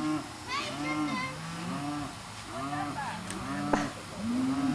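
Several farm animals calling over and over: short calls that rise and fall in pitch, overlapping at different pitches. A sharp knock sounds a little before the end.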